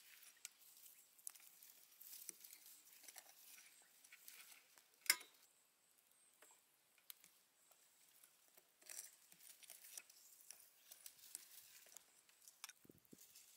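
Faint scattered clicks and crackles of dark sauce being spooned over a roasted duck and dripping onto a stainless steel tray, with one sharper click about five seconds in.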